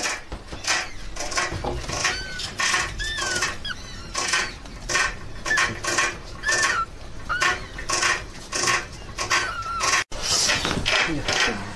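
Bamboo rat gnawing on split bamboo: a steady run of crisp crunching bites, about two a second, with a few short high chirping squeaks over it.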